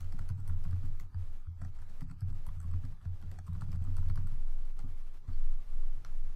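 Typing on a computer keyboard: a quick, irregular run of keystroke clicks.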